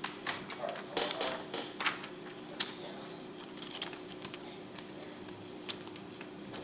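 Plastic clicks and crinkling as a disassembled membrane keyboard's clear circuit sheet is handled and lifted from its plastic case, with one sharp click about two and a half seconds in.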